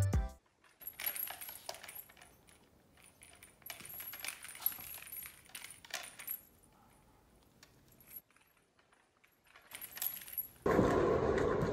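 Faint metallic jingling and light taps come in short spells as a kitten plays with a springy wire cat toy. Near the end a louder steady noise cuts in abruptly.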